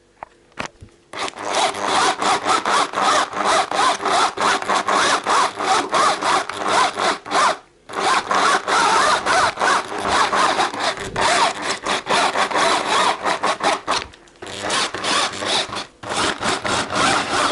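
Hand meat grinder driven by an electric drill, its auger crunching through garlic scapes in a dense, rapid grinding noise. It starts about a second in and stops briefly twice.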